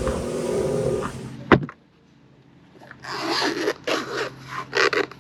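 A steady rumble cuts off with a sharp click about a second and a half in. After a short near-quiet gap comes a run of short scraping strokes of a knife, five or six in about two seconds.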